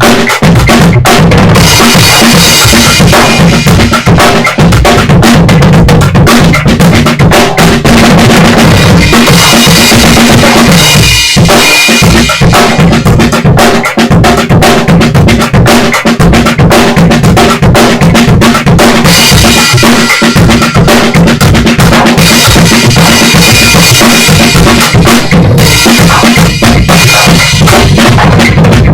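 Mini drum kit played loud in a steady groove along with a recorded backing track, struck with Hot Rods bundled dowel sticks.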